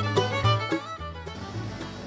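Background music with a melody over a bass line, dropping to a quieter passage a little over a second in.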